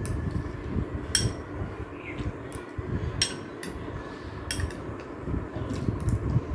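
Cutlery clinking and scraping against a plate while eating pasta: short, sharp clinks about once a second.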